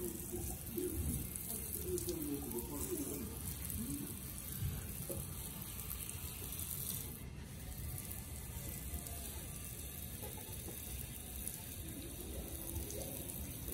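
Water spraying in a fine shower from a hose watering wand onto potted succulents and their soil: a steady hiss.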